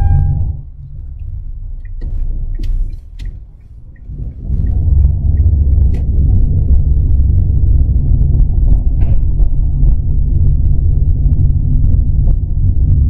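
A loud, low rumble of a car being driven, heard from inside. It drops away for about three seconds just after the start, then comes back steady, with faint scattered clicks over it.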